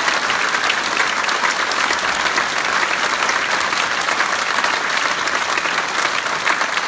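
Audience applauding: many people clapping steadily in a dense, even stream.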